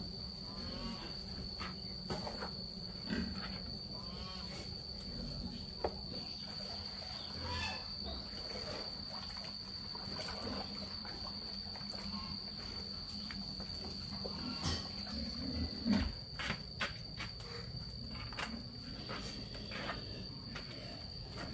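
A steady high-pitched insect trill runs under a low steady hum. Scattered knocks and scrapes come from a bowl and plastic buckets as pig feed is scooped and carried, with the loudest knock about sixteen seconds in.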